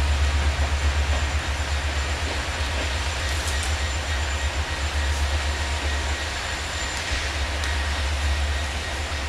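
Steady, slightly pulsing low rumble of an idling train engine, under an even hiss of rain.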